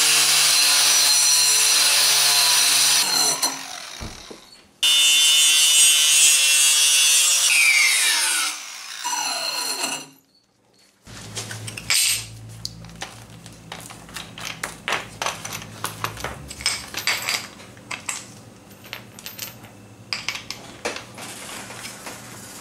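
A DeWalt angle grinder with a wire cup brush scours rust off a steel bumper mount. It runs loud, eases off briefly, runs again, then spins down with a falling whine and stops about ten seconds in. After a moment's quiet come light metal clicks and clinks as the grinder is handled and its cup brush is swapped for a disc.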